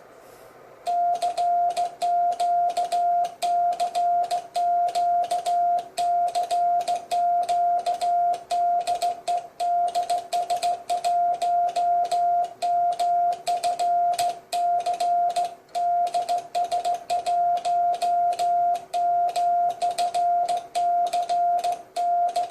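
Morse code: a single steady tone keyed on and off in a rapid run of dots and dashes, starting about a second in, with a sharp click at each keying edge.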